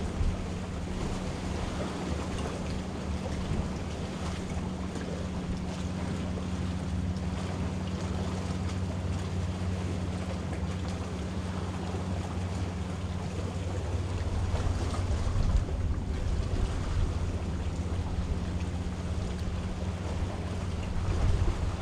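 Wind buffeting the microphone and sea waves washing on shoreline rocks, with a steady low hum underneath.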